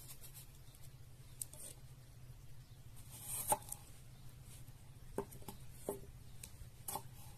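Scattered light clicks and taps of ingredients and utensils being handled in a cooking pot while ingredients are mixed, the sharpest knock about halfway through, over a faint steady low hum.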